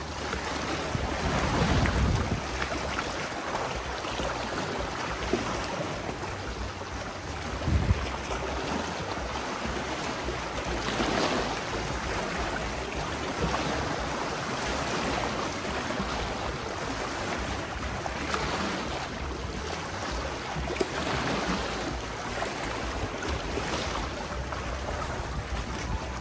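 Wind buffeting the microphone over the wash of sea waves, with low bumps from gusts about two seconds and eight seconds in.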